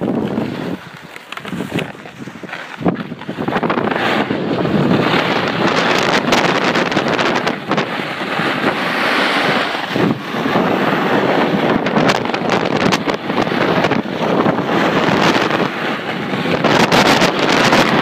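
Wind buffeting the microphone of a camera carried at speed down a snow run, mixed with the hiss and scrape of the rider's edges on the snow. It grows louder about three seconds in as the rider picks up speed.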